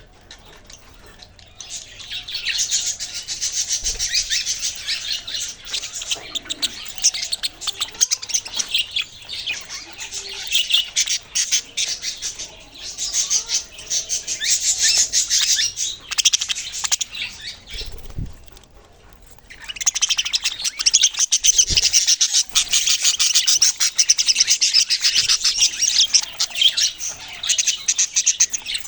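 Several small pet birds chirping and chattering rapidly and densely, high-pitched, with a short lull near the start and another about two-thirds of the way through.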